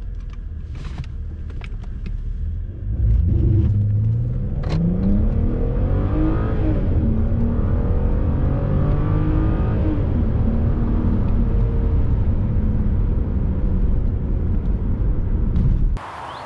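BMW 330i E90's three-litre straight-six with an Eisenmann exhaust pulling hard under acceleration, its pitch rising through the gears with a drop at each upshift about seven and ten seconds in, then holding a steady drone. It cuts off just before the end.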